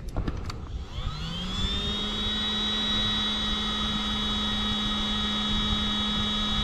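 Handheld electric air pump starting up after a couple of clicks, its whine rising over about a second, then running steadily as it pumps air through the valve into a float tube's inflation bladder.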